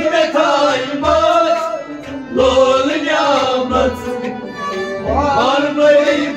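Male voice singing a Sufi devotional song, with instrumental accompaniment and a low drum stroke about every 1.3 seconds.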